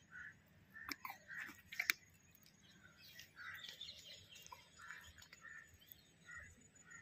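Faint handling sounds of a fishing hook being worked out of a fish's mouth, with two sharp clicks about one and two seconds in. Small birds chirp faintly throughout.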